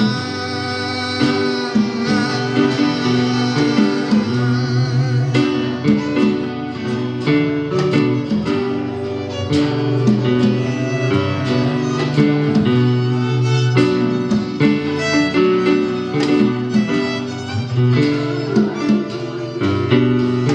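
Live band playing an instrumental passage of a song, with acoustic guitar prominent over a steady bass line and sustained chords, no singing.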